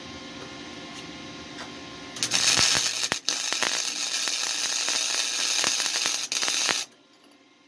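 Flux-core wire welder arc crackling and hissing, starting about two seconds in over a steady low hum and cutting off suddenly after about four and a half seconds.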